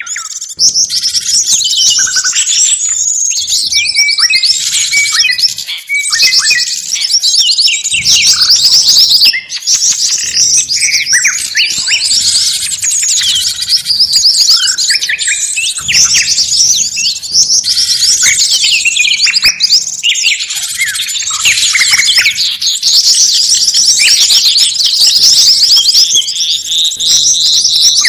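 Bird-trapping lure recording of many small songbirds calling at once: a loud, dense, unbroken chatter of rapid high chirps and twitters. This is a mixed 'ribut' lure call meant to draw forest birds in.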